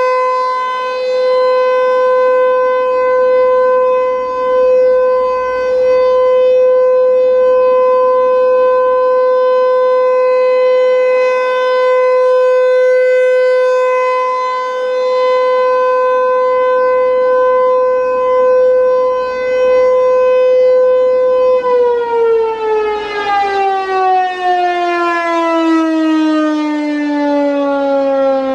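American Signal T-128 outdoor warning siren sounding a steady alert tone, its loudness swelling and dipping slightly. About three-quarters of the way in the tone is cut and the siren winds down, its pitch sliding steadily lower, as the three-minute test ends.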